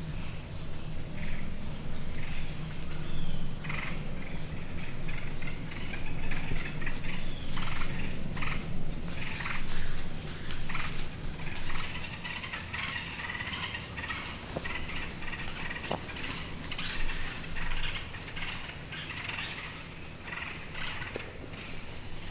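Whitetail buck vocalizing close by, with repeated short rustles in dry leaves.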